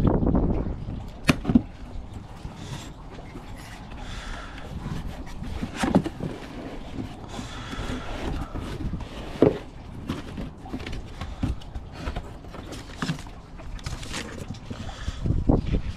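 Cardboard box being unpacked by gloved hands: flaps folded open with irregular scrapes and taps on the cardboard, and paper rustling as the manual is pulled out near the end.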